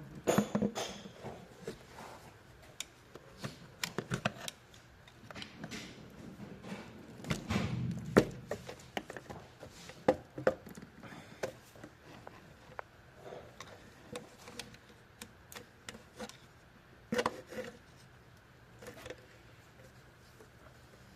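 Irregular clicks and light knocks at no steady rhythm, with a few louder knocks about a second in, around eight seconds and around seventeen seconds.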